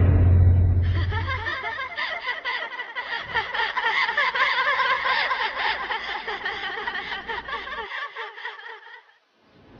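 A deep low boom fades out over the first second and a half, while a dense, fast-pulsing mix of several voices laughing together swells up and then cuts off suddenly near the end.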